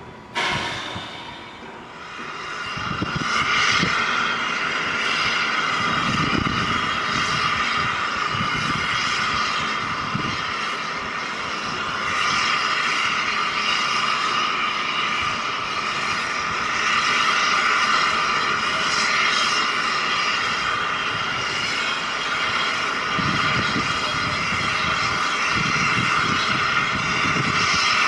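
Steam locomotive 60163 Tornado, an LNER A1, giving off a loud, steady roar of escaping steam. It starts suddenly just after the start and holds on, with a few low thumps underneath.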